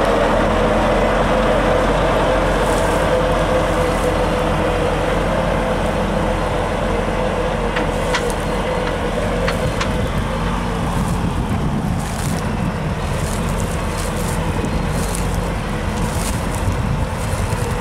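Diesel engine of a large articulated four-wheel-drive tractor running steadily as it pulls away with a lifted reversible plough, growing slightly fainter. A whine from the tractor is prominent at first and fades after the first few seconds.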